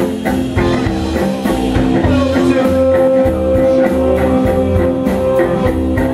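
Live rock band playing loudly on a stage PA: electric bass guitar and drums keep a steady beat, with one long note held through the second half.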